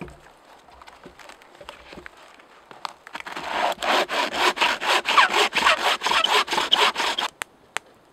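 Wooden-framed bow saw cutting a green, moss-covered branch: a few light knocks at first, then quick, even back-and-forth strokes from about three seconds in that stop just after seven seconds, followed by two sharp clicks.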